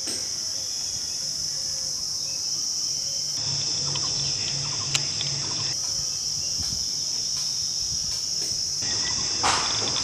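Steady high-pitched buzz of insects, with a few faint chirps over it.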